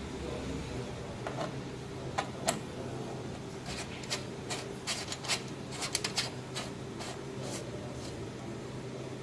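A string of irregular light clicks and knocks, as of parts being handled and fitted, over a steady low hum. The clicks come thickest between about four and six and a half seconds in.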